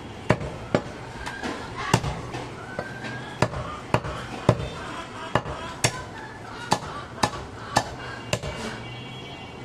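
Heavy butcher's knife chopping goat meat and rib bone on a wooden log chopping block: about a dozen sharp chops at uneven intervals, one or two a second.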